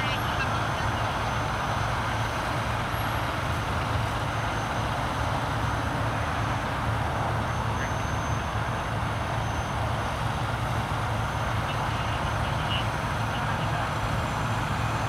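Heavy tow truck's diesel engine idling steadily.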